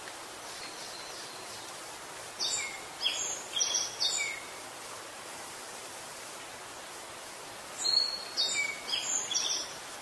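A songbird singing two short phrases of four quick, clear notes each, some sliding downward, over a steady background hiss of outdoor ambience.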